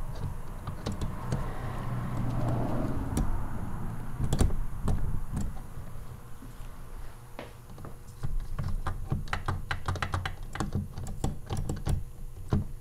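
Metallic clicking and clacking of a VW manual transmission's shift mechanism being worked by hand through the gears. The clicks come throughout and turn fast and dense in the last few seconds.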